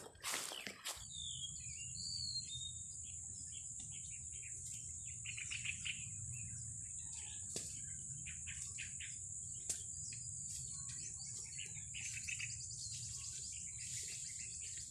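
Small wild birds chirping and calling in short, scattered phrases over a continuous high-pitched insect drone.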